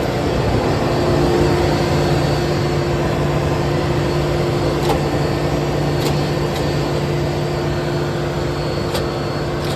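Combine harvester running, a loud steady mechanical drone with a constant low hum, with a few faint clicks.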